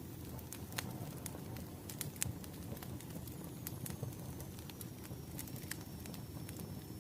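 Firewood burning, with irregular sharp crackles and pops over a steady low rumble of the flames.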